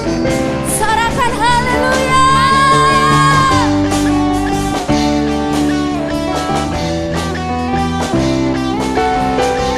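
Rock-style background music with guitar and a steady beat; a bending lead melody rises and is held from about one to three and a half seconds in.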